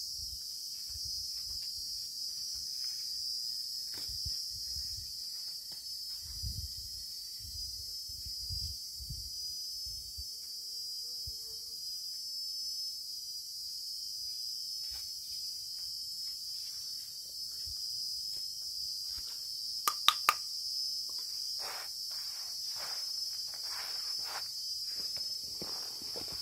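Steady, high-pitched insect chorus, with low thuds during the first ten seconds and three sharp clicks about twenty seconds in.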